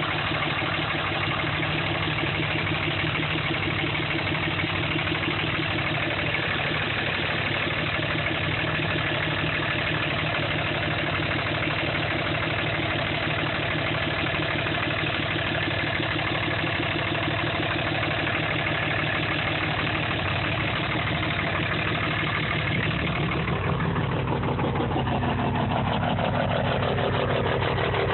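2005 Dodge Ram's 5.9 Cummins common-rail diesel idling steadily, with the unthreaded oil filler cap dancing on the fill hole from heavy blow-by: the engine has been damaged by bad injectors and needs a rebuild. The engine note shifts about 23 seconds in.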